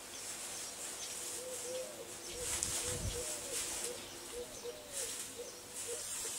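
Dry hay rustling and crackling as a pressed bale is handled and tied with plastic strip, with a thud about three seconds in. Over it, a bird gives a rapid series of short rising-and-falling calls, about two a second.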